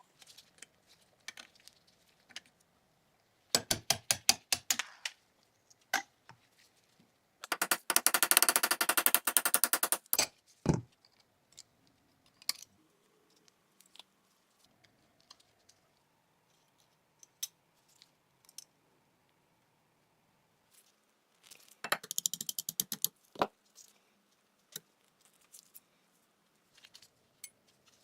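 Hand work on small metal parts: three bursts of rapid clicking and rattling, the longest about three seconds, with scattered single clicks between them.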